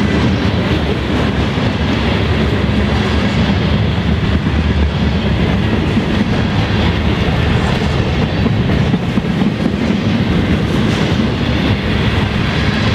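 Freight cars (covered hoppers and boxcars) rolling past on the rails: a loud, steady rumble of steel wheels on track.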